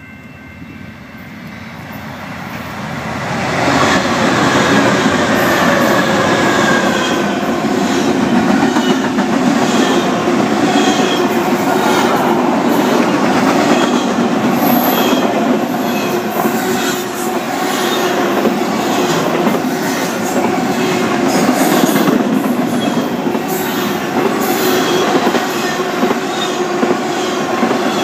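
A fast BNSF double-stack and trailer intermodal freight train passing close by. Its roar swells over the first few seconds as the head end arrives, then holds steady as the cars rush past with a rapid, regular clickety-clack of wheels over the rail joints.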